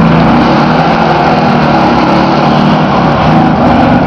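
1975 GMC pickup truck's engine running loud and steady, its pitch wavering slightly as the revs shift.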